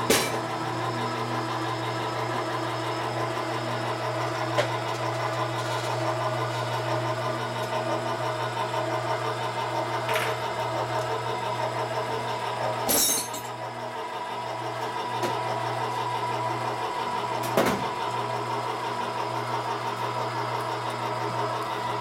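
A steady low machine hum with a faint steady whine above it, broken by a few sharp clicks and knocks and a short hiss about 13 seconds in.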